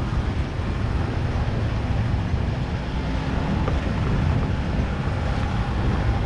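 Vehicle engine running on the climb up an off-road dirt track, with wind rumbling on the microphone.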